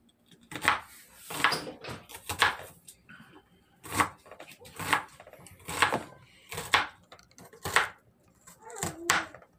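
Kitchen knife slicing through an onion and striking a plastic cutting board: short cuts at a steady pace of about one a second, nine in all.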